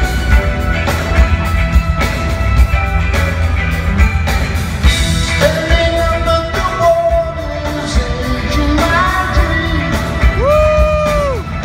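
Live rock band playing with a man singing, recorded from the crowd in an arena. Near the end the singer holds one long note.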